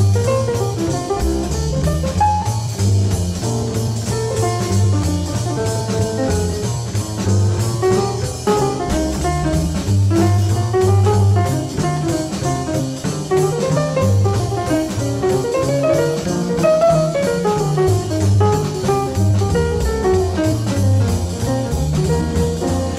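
Jazz background music with guitar and a drum kit.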